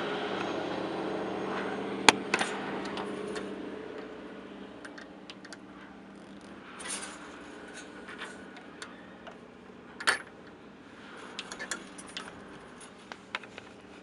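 A steady droning hum with a few held low tones, slowly fading, the kind of unexplained sound from the sky the recorder was capturing. Sharp clicks and taps come through it, the loudest about two seconds in and about ten seconds in.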